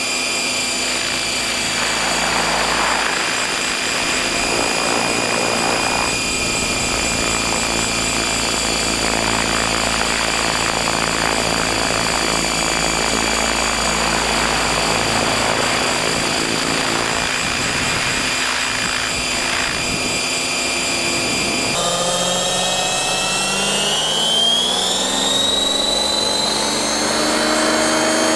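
Electric RC helicopter, a custom-stretched T-Rex 600 on 690 mm blades, heard from a camera slung beneath it. It gives a steady motor whine and rotor noise. About two-thirds of the way through the tones drop suddenly, then climb again in a smooth rising glide.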